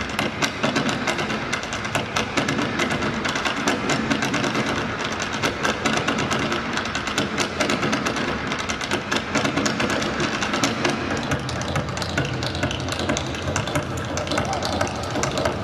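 Rapid, dense clattering taps of Irish dance hard shoes on a stage floor, from a line of dancers stepping together.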